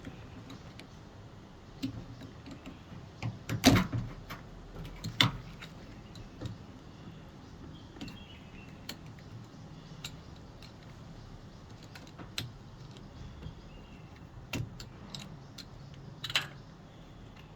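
Scattered clicks and knocks of hands handling a washing machine's plastic water inlet valve and its solenoids. The loudest knocks come about three and a half and five seconds in, with another near the end.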